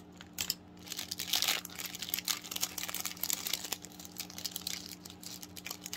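Crinkly plastic snack wrapper being handled and torn open, an irregular run of crackling and rustling as an individually wrapped pastry crisp is unwrapped.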